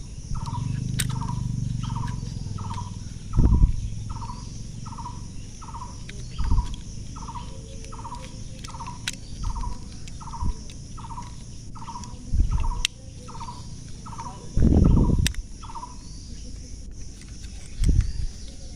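Plastic toy parts being handled and pressed together, with several short knocks, the loudest near the end. Behind them runs a repeated short chirping call, about one and a half chirps a second, which stops a few seconds before the end.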